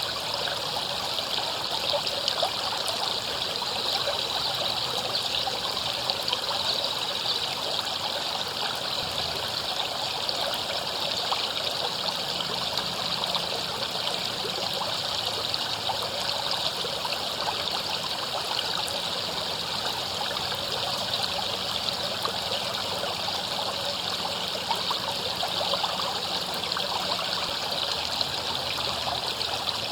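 River water flowing over rocks, a steady, unbroken rush with fine splashing and trickling.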